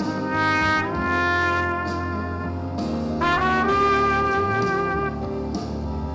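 Instrumental music: long held notes over a sustained accompaniment, moving to new notes about a second in and again about three seconds in.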